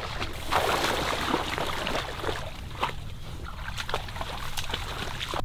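Water sloshing and splashing with rustling of reeds as someone wades through shallow marsh water, busiest about half a second to two seconds in, then thinning to scattered light splashes and clicks.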